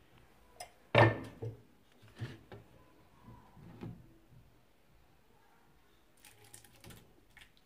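Kitchen handling sounds: a metal pot lid set down on a wooden table with a sharp clack about a second in, then a few lighter knocks of bowls being handled, and a brief scraping rustle near the end.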